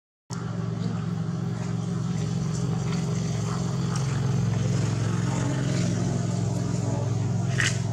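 A motor vehicle's engine idles nearby as a steady, even hum. The sound drops out briefly at the very start, and a short, sharp high sound comes near the end.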